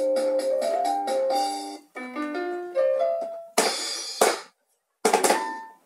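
Umka children's electronic toy keyboard playing short synthetic tunes of quick stepping notes, which break off and start again several times. A short burst of noise about three and a half seconds in interrupts the notes, and the notes resume near the end.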